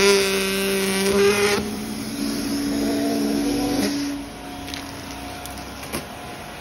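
Vacuum cleaner sucking through its hose and crevice nozzle, with a loud steady whine that jumps up suddenly at the start, drops to a lower pitch about one and a half seconds in, and eases to a quieter steady hum about four seconds in.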